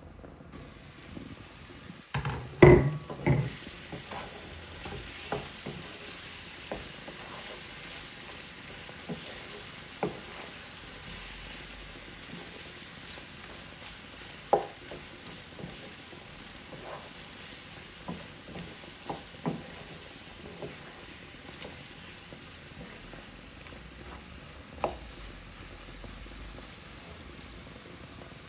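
Chicken curry sizzling gently on low heat in a nonstick frying pan while a wooden spatula stirs it, knocking against the pan every second or two. The loudest sound is a clatter about two seconds in, as the glass lid comes off the pan.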